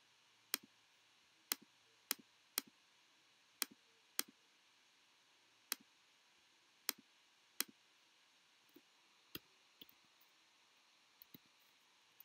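Sharp, isolated clicks of a computer mouse and keyboard, about a dozen at irregular gaps of half a second to a second, some in quick pairs, growing fainter in the second half.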